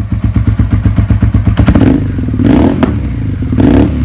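Suzuki SV650's V-twin engine running with a rapid, even pulse, revved briefly twice, about two and a half and three and a half seconds in.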